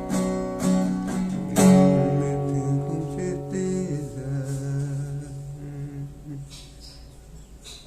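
Acoustic guitar strumming, ending on one final strum about a second and a half in that rings out and slowly fades away.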